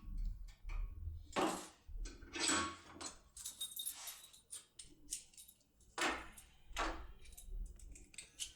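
Irregular metallic clicks and rattles from a lock, keys and picking tools being handled, about a dozen short scattered bursts.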